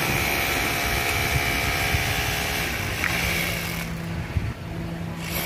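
Steady machinery drone with a constant low hum and a faint high whine, typical of air-conditioning equipment running; the hiss above it drops away about four seconds in, then returns near the end.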